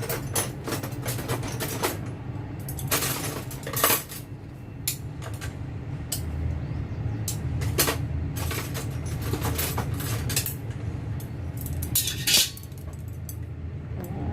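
Chopsticks clinking and knocking against a pot and bowl as soup ingredients are lifted and dropped in: scattered irregular clicks, with a few louder knocks about 4 s in and near 12 s. A steady low hum runs underneath.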